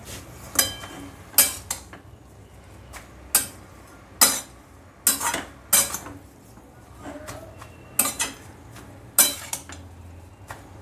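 Metal spatula clinking and scraping against a kadhai as sautéed red amaranth greens are turned over and mixed, about ten sharp, irregular clinks.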